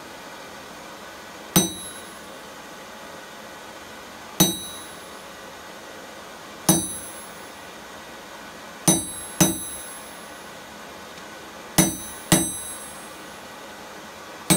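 Hand hammer striking a steel punch held on a red-hot square bar on an anvil, driving in the eye hole: seven separate ringing metallic blows a couple of seconds apart, two of them coming in quick pairs, each ring dying away within about half a second, over a steady hiss.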